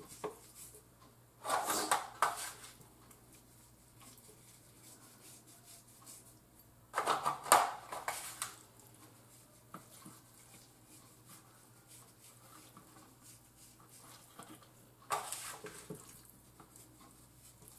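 Kitchen handling sounds while chicken thighs are seasoned in a baking pan: three short bursts of clatter and rustle, about a second and a half, seven and fifteen seconds in, with a faint steady hum underneath.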